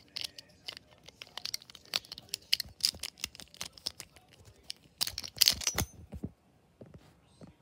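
Ace Dragon Beyblade being fitted back together by hand, its metal disc and plastic parts clicking and scraping against each other in a dense run of small clicks and rubs. The loudest cluster comes about five seconds in, after which it goes quiet.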